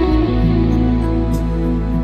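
Background music: slow, gentle instrumental with sustained guitar notes.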